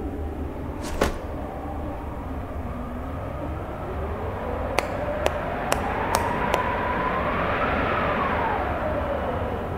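Air-conditioner remote control buttons clicking: one click about a second in, then five quick clicks roughly half a second apart as the temperature is stepped down. Underneath are a steady low rumble and a tone that slowly rises and then falls.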